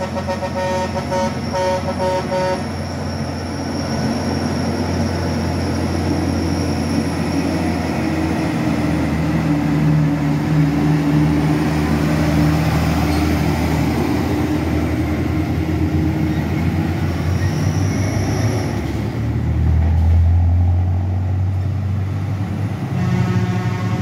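A vehicle horn gives several short toots, then a heavy Shacman diesel truck drones past, its engine pulling hard under load, loudest about halfway through. Another horn starts sounding near the end.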